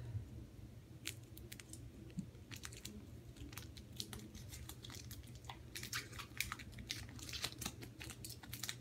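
Foil trading-card booster pack being crinkled and torn open by hand: faint, scattered crinkles and crackles that grow busier in the second half.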